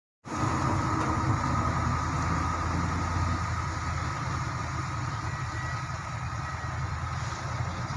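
Truck engines running, a steady low rumble as loaded cargo trucks crawl along a muddy dirt road.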